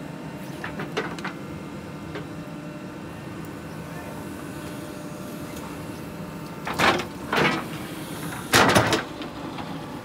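JCB 3DX backhoe loader's diesel engine running steadily while the backhoe bucket digs soil, with a few loud scrapes of the bucket through earth and stones about seven seconds in and again, loudest, near the end.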